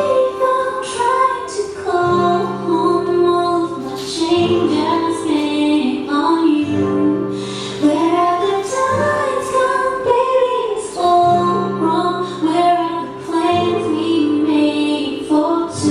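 Pop ballad music: a high singing voice carries a melody over steady held chords.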